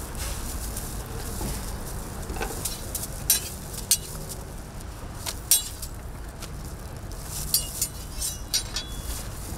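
Metal utensils clinking and tapping against pans and containers while crepes are made: a scattering of sharp clinks, some ringing briefly, the loudest a little past halfway, over a steady street background hum.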